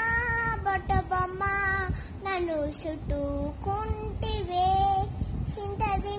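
A young girl singing a string of held notes, her voice sliding down in pitch a little over two seconds in.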